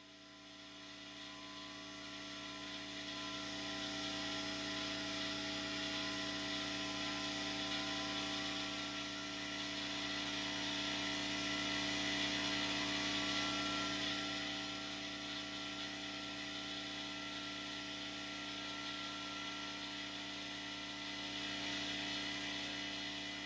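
Steady machine hum, like an electric air compressor running, fading in over the first few seconds and then holding even.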